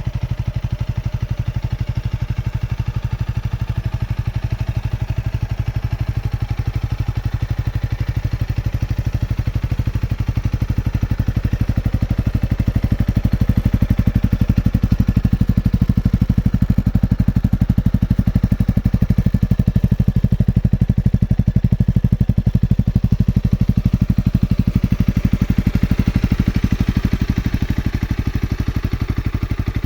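Honda CRF300L's single-cylinder four-stroke engine running steadily at low revs, with an even firing beat; it grows a little louder for about ten seconds in the middle, then eases back.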